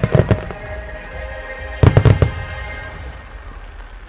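Aerial fireworks shells bursting: a few booms at the start, then a cluster of loud booms about two seconds in. Music with held tones plays underneath, and the sound dies away near the end.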